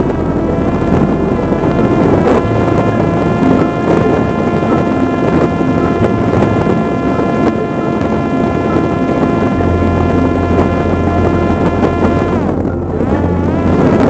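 Parrot Disco fixed-wing drone's electric motor and propeller whining at a steady pitch, which dips and climbs again near the end, over wind rushing across the onboard microphone.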